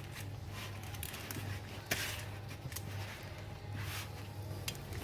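Steady low hum in a bakery kitchen, with a few brief soft swishes and light clicks.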